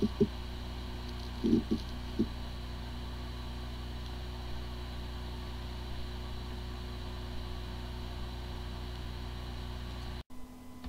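Hard disk drive spinning with a steady hum, with a few brief noises in the first couple of seconds, cutting off about ten seconds in. It sounds like a good drive, but its firmware is corrupted, so the computer cannot detect it.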